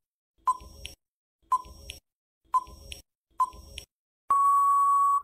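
Quiz countdown-timer sound effect: four short beeping ticks about one second apart, then a single steady beep lasting about a second near the end as the count reaches zero.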